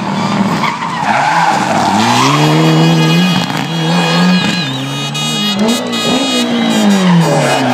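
Rally car taking a tarmac hairpin. Its engine revs fall and climb again several times through the gear changes as it brakes into the bend and accelerates out, with tyres squealing as it slides through the turn.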